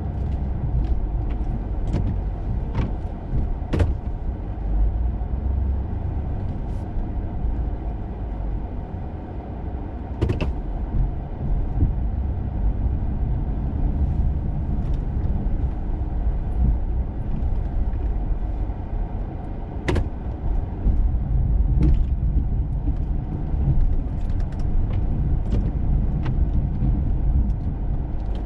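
Pickup truck with a Snowdogg VXFII V-plow mounted, running while it plows heavy, wet snow: a steady low engine and drive rumble with scattered sharp knocks and clatters.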